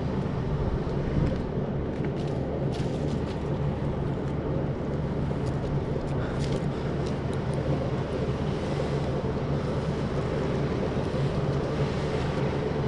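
Chainsaw running steadily as the cut into the tree is opened, with a few sharp clicks along the way.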